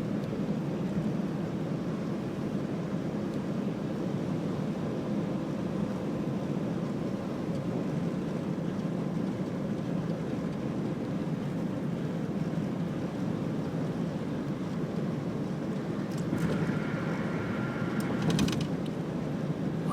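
Steady road and engine noise of a moving car heard from inside the cabin, a low, even rumble. A few brief clicks near the end.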